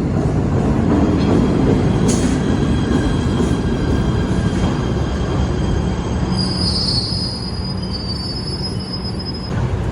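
PATH rapid-transit train running on the rails with a loud, steady rumble. A high-pitched wheel squeal joins about six seconds in and stops shortly before the end.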